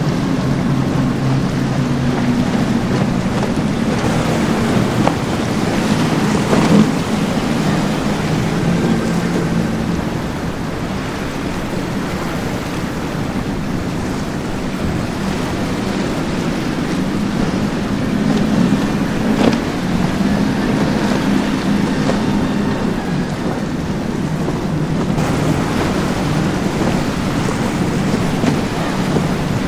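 Powerboats running fast: the drone of outboard engines over the hiss of spray and churning wake water, the engine pitch shifting as different boats pass. There are two brief sharp cracks along the way.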